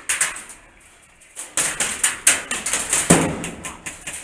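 Airsoft gunfire inside and around a steel shipping container: sharp clicks and cracks in an uneven rhythm, bunched closely together in the middle. There is a heavier thump about three seconds in.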